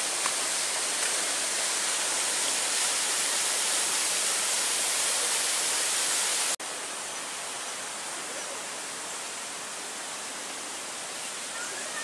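Steady rushing of a waterfall splashing over rocks. It drops a little in level, abruptly, about six and a half seconds in.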